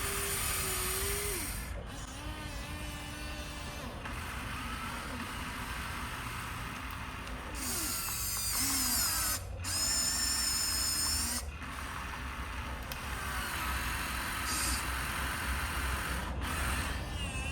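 The small electric motors and gearboxes of a Huina radio-controlled construction model whine in short runs, starting and stopping, with the pitch shifting as they work. A shrill whine comes in about eight and ten seconds in, and there are several sudden breaks.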